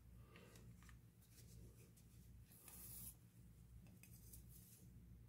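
Near silence, with a low steady hum under a few faint scratches and rubs from a toothpick and hand working stained-glass paint into the cells of a plastic-covered pattern; the plainest scratch comes about halfway through.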